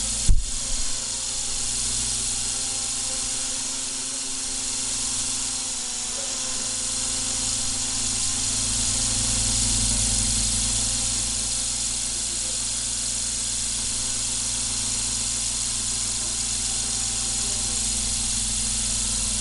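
Electric motor and rotor blades of a Kyosho EGG Neon Messenger toy helicopter whirring steadily as it flies, with a hiss and a steady whine. A single sharp knock sounds just after the start.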